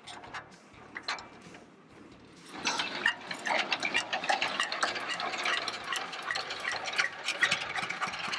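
Single-cylinder diesel engine of a walking tractor being hand-cranked, with a few knocks from the crank, then catching about two and a half seconds in and running with a fast, steady clatter.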